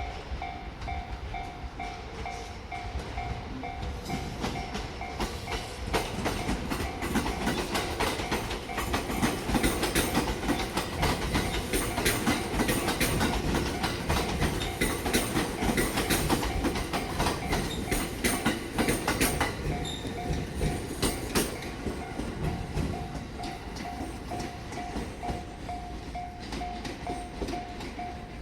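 Level-crossing warning bell ringing in a steady repeating ding, drowned out from about six seconds in by a train running through the crossing, its wheels clacking over the rail joints. The train has gone by about twenty seconds in, and the bell rings on.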